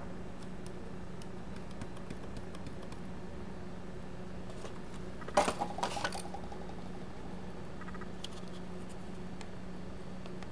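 Light clicks and taps of a 3D-printed plastic nacelle being handled against a plastic airframe, with a short cluster of louder plastic clacks about halfway through, over a steady low hum.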